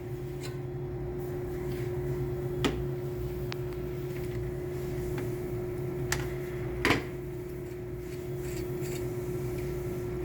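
A few light clicks and knocks of a cordless drill and its new chuck being handled and tightened, the loudest about seven seconds in, over a steady background hum with one constant tone.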